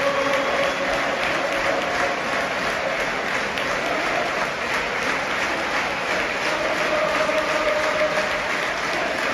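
Large football stadium crowd applauding steadily, with crowd voices holding long sung notes over it at times.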